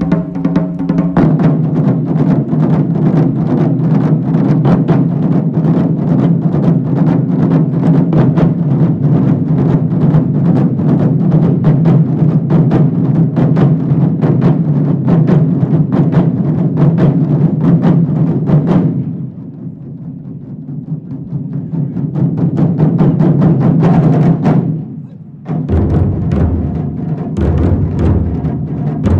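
Large Japanese taiko drum ensemble playing a fast, dense run of strokes. About two-thirds of the way through it drops to soft playing, swells back up in a crescendo and breaks off suddenly, then comes back in with a sparser, steady beat and deep thumps.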